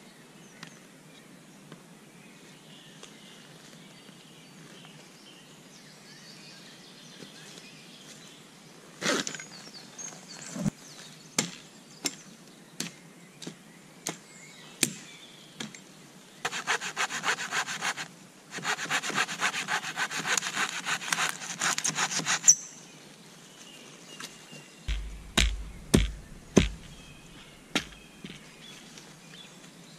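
Wood being sawn by hand: two stretches of quick back-and-forth saw strokes, after a run of single knocks about a second apart. A few heavier thumps follow near the end.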